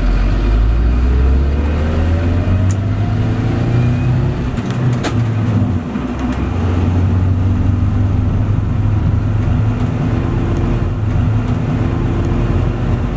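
Cabin noise of a stock UAZ Hunter accelerating to 80 km/h: a loud engine and drivetrain drone that rises in pitch over the first few seconds, dips briefly about six seconds in, then runs on steadily.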